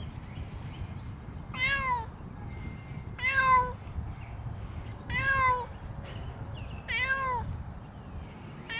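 Domestic tabby cat meowing four times, about every two seconds. Each meow lasts about half a second and rises slightly, then falls in pitch. The cat is complaining at being kept in a pet stroller.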